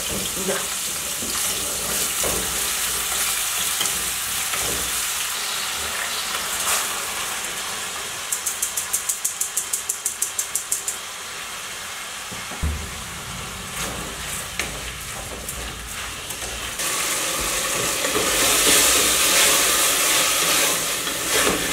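Food sizzling as it fries in a pan on a gas hob, stirred with a wooden spoon. About eight seconds in, a quick run of sharp clicks, about five a second for nearly three seconds, like a gas burner's spark igniter. A single thump follows, and the sizzle gets louder near the end.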